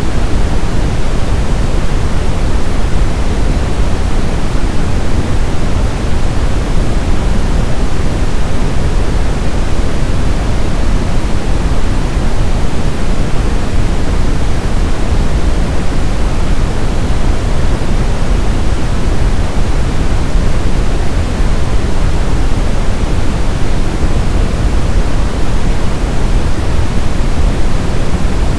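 Brown noise: a steady, loud, even hiss-rumble that is deepest in the low end and fades toward the treble.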